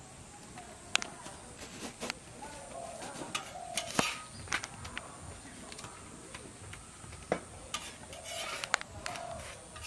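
Irregular sharp clicks and knocks, about ten of them, the loudest about four seconds in.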